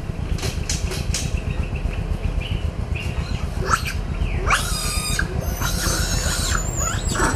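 Baby macaques giving short, high-pitched squeals that rise and fall, mostly in the second half, with a higher drawn-out call near the end. Underneath runs a steady low rumble, with a few faint rustling clicks in the first second.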